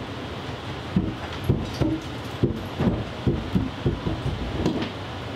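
Heavy wooden slabs and boards knocking and thudding against one another and the wall as they are shifted upright, about a dozen irregular knocks over roughly four seconds. A steady low hum runs underneath.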